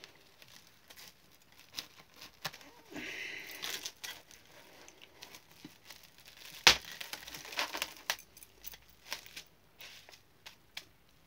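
Cling film crinkling and crackling as it is pulled off the roll and wrapped around an arm, in scattered sharp crackles with one louder snap a little past the middle.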